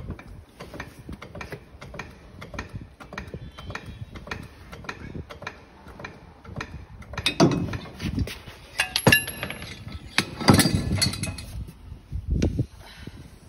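A hydraulic puller pumped by hand, pulling the multi-groove V-belt drive pulley off a Buhler roller mill shaft: a run of quick mechanical clicks, then from about seven seconds in several loud metal clanks and rings as the pulley comes free and is handled.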